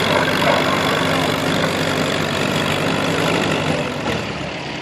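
Allis-Chalmers WD tractor's four-cylinder engine running steadily while hitched to a loaded pan sled, easing off a little near the end.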